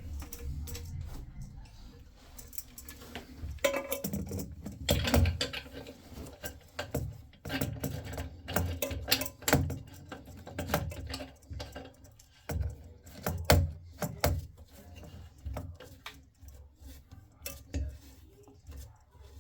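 Tools and metal pipe fittings being handled: irregular clinks, clicks and knocks as a pipe is prepared for fitting.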